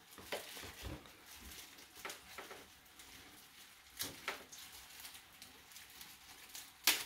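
Faint kitchen handling noises: light rustling and scattered small taps, with a sharper knock about four seconds in and a louder one near the end.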